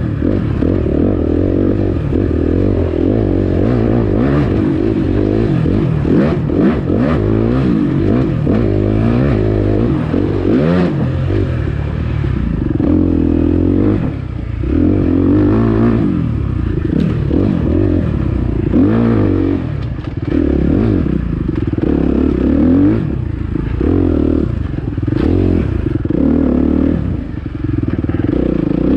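Dirt bike engine revving up and down continuously as it is ridden hard along a rough trail, with clatter from the bike over the uneven ground.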